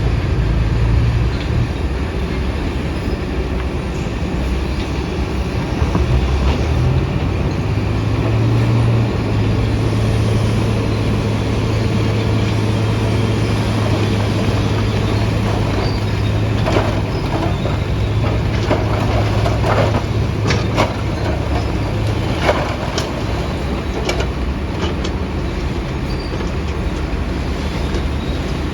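Heavy construction machine's diesel engine running steadily with a low hum, with a series of sharp metallic knocks and clanks from about halfway through until near the end.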